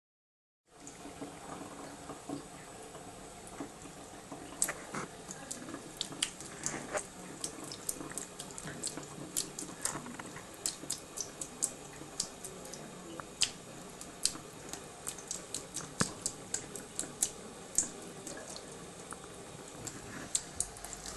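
Thin stream of water running from a kitchen tap into the sink, with a cat lapping at the stream: quick, irregular splashing clicks, several a second, begin about four seconds in.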